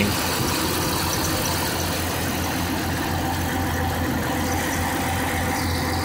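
Jeep Grand Cherokee engine idling steadily with the radiator cap off, still warming up with the thermostat closed.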